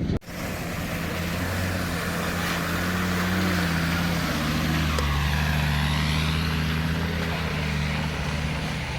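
Off-road vehicle's engine running steadily at low revs, its pitch dipping slightly about halfway through.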